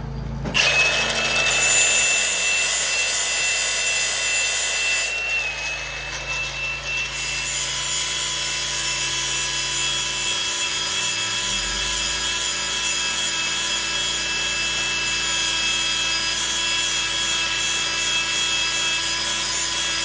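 Power grinder sharpening steel machine knives: a steady grinding hiss over a high motor whine, starting about half a second in and running on, with a brief dip in the low hum about halfway through.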